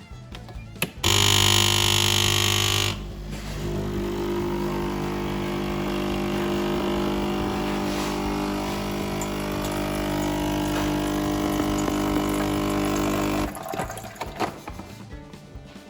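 Sage Nespresso capsule machine's pump running with a steady buzzing hum. It starts about a second in, louder for its first two seconds, stops near the end and starts again just after.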